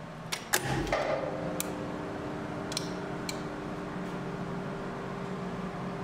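Relays and contactors in an elevator's relay-logic control cabinet clicking as they switch: a quick cluster of clicks about half a second in, then single clicks over the next few seconds. From about a second in, a steady electrical hum from the machinery sets in.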